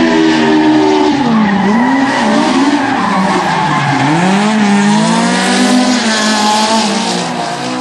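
Drift car sliding past under power, its engine revving hard with tyres squealing and skidding. The engine pitch drops and climbs again twice, about one and a half and four seconds in, as the throttle is worked through the slide, then rises and holds high.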